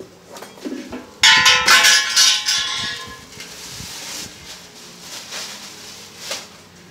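Steel fire pit parts clang about a second in and ring on for a couple of seconds, then plastic wrapping rustles as it is pulled off the sheet-steel bowl.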